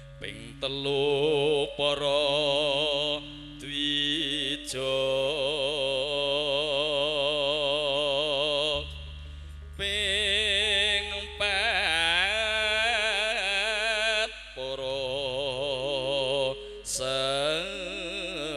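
A solo voice sings a slow Javanese chant in long, wavering held notes over steady sustained accompaniment, with a few short pauses between phrases.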